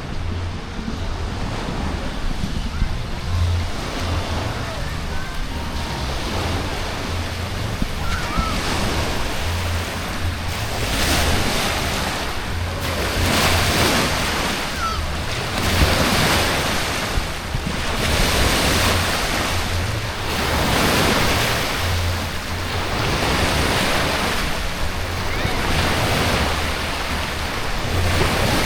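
Rushing, splashing water that swells in surges about every one and a half to two seconds from about a third of the way in, with wind rumbling on the microphone.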